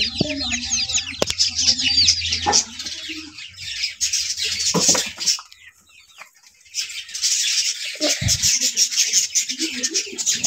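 Chicks peeping loudly and continuously, a rapid run of shrill, falling chirps. The peeping dies away briefly a little past the middle, then starts up again.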